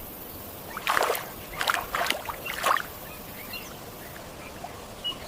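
Hyena calls in an outdoor field recording: several short, sharp cries in the first half over a steady background hiss.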